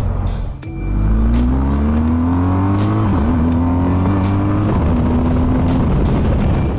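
BMW R 1250 GS boxer-twin engine pulling hard under acceleration, its pitch rising, dropping at an upshift about three seconds in, rising again, then holding a steady note. Background music plays along.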